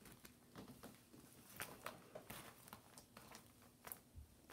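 Faint, scattered soft clicks and crackles of thick slime being handled and squished by hand.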